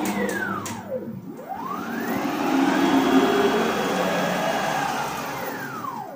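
NEMA 23 stepper motors on DM542 drivers at 36 V, driving a homemade CNC router's gantry along its ball screw in a rapid move at 5000 mm/min. The whine falls in pitch as the axis slows almost to a stop about a second in, rises again as it speeds up, and holds steady. It falls again near the end as the axis decelerates.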